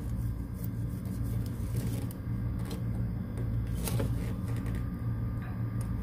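A steady low hum, with a few faint clicks and taps over it.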